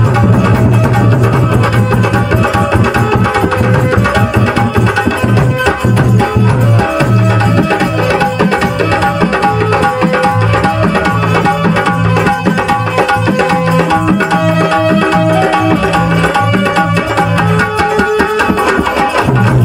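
Live Korku folk music for a Khamba song dance: hand drums beating a steady rhythm under a melody of held notes, played without a break.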